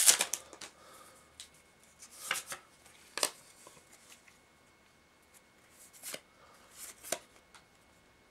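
Trading cards being handled and laid down on a table: a handful of short slides and taps spaced out about a second apart. A brief crinkle of pack wrapper dies away at the very start.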